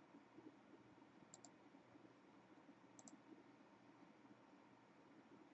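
Near silence: faint room tone with two quiet double clicks, about a second and a half apart.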